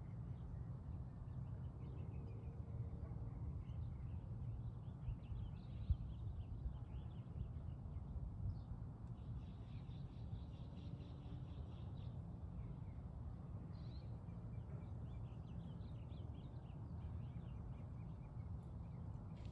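Small birds chirping on and off, with one longer trill in the middle, over a steady low background rumble; a single short knock about six seconds in.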